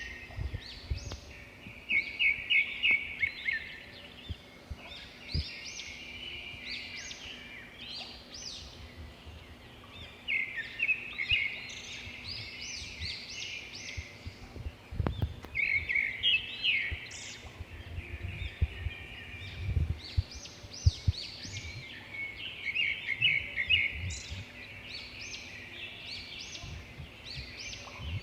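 A songbird singing, repeating short phrases of quick trilled notes with brief pauses between them. Occasional low thumps sound underneath.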